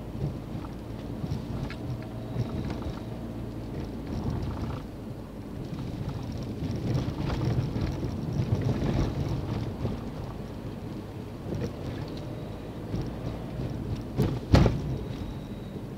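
Car running slowly, with steady low engine and road rumble and small rattles. One sharp knock comes near the end.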